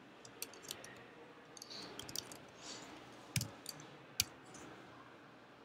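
Faint, irregular computer keyboard keystrokes: single sharp clicks at uneven intervals, two a little louder about three and a half and four seconds in.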